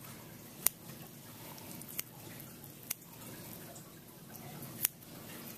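Faint wet squishing of preserved cat neck tissue being worked with a probe and dissecting scissors, with four sharp clicks of the metal instruments spread through it.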